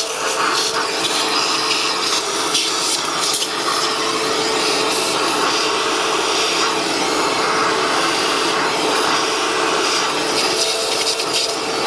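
Vacuum cleaner running steadily with a constant motor whine, its nozzle rubbing and scraping as it sucks dirt out from around the engine's coil packs.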